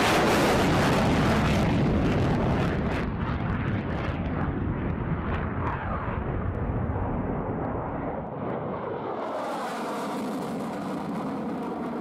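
Mirage-family delta-wing fighter's Atar turbojet at full power on takeoff, loudest at the start and fading as the jet climbs away. The deep rumble drops out about eight seconds in, leaving a thinner, higher engine sound.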